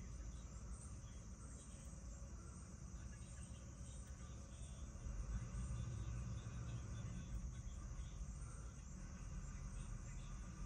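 A steady high-pitched insect chorus, with a faint low rumble underneath that grows a little louder about halfway through.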